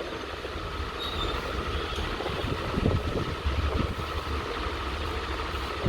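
Steady low rumbling background noise with a faint steady high tone running through it.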